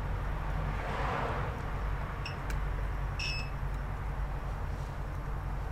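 Digital multimeter's continuity beeper sounding as the probes touch board pads connected to ground: a brief blip about two seconds in and a short beep about a second later, over a steady low hum.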